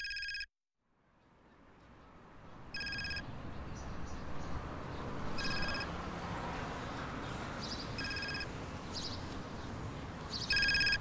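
Phone ringing: a short electronic trilling ring, five times about two and a half seconds apart, over outdoor background noise that fades in after the first ring, with a few faint bird chirps.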